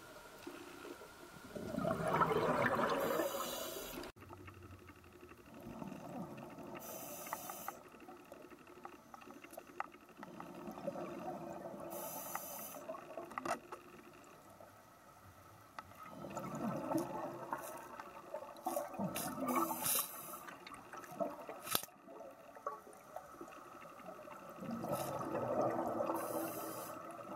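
Scuba diver breathing through a regulator underwater: a rush of exhaled bubbles about every four to five seconds, several of them with a short high hiss.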